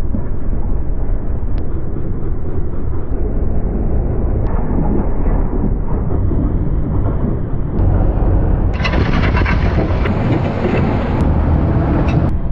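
A tractor pulling a reversible plough through the soil: a loud, steady, heavy rumble of the running tractor and plough, with soil rushing and scraping over the steel mouldboards. From about nine seconds in it turns harsher and crackly for a few seconds.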